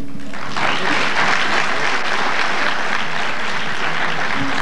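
Audience applauding, a dense steady clapping that starts about half a second in.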